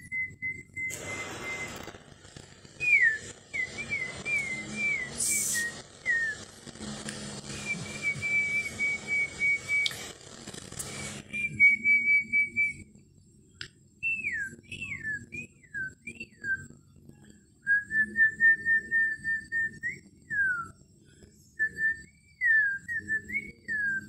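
African grey parrot whistling: a string of clear notes, some held steady and others sliding downward, in short phrases with pauses between. For the first half a steady hiss runs beneath the whistles and cuts off abruptly about eleven seconds in.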